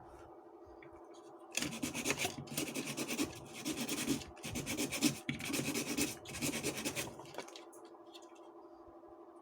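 Scraping or rubbing, about five strokes over several seconds, over a steady low hum.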